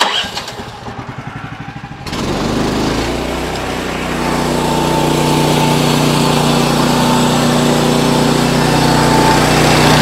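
Gas engine of a band sawmill starting: about two seconds of rapid, even cranking, then it catches and runs steadily, getting louder about four seconds in.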